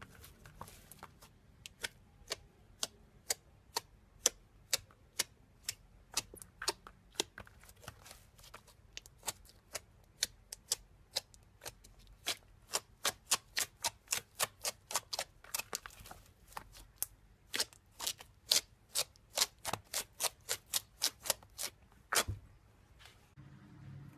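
Slime being pressed and worked, popping in a run of sharp clicks at an uneven pace, a few a second, coming thicker and faster in the second half.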